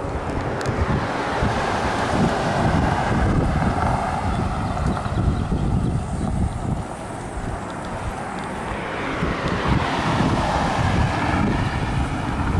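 Wind buffeting the microphone of a handheld camera, with a rushing noise that swells twice.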